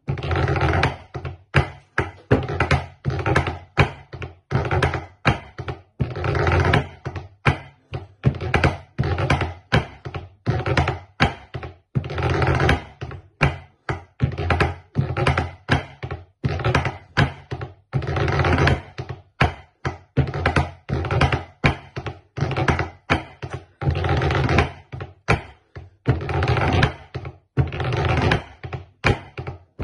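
Snare drumsticks played on a wooden practice pad: fast rudimental strokes with dense rolls about every six seconds, over dull low thuds.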